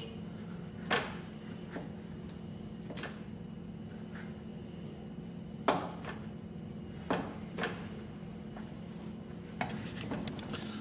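Scattered light clicks and taps, about nine over ten seconds and irregularly spaced, from screws, tools and window regulator parts being handled in a car door, over a steady low hum.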